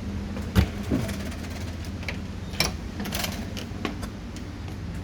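Steady low mechanical hum of background machinery in a shop, with a few scattered sharp clicks and knocks.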